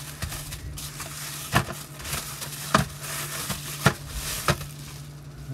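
Plastic bubble wrap rustling and crinkling as it is pulled off by hand, with four sharp crackles along the way.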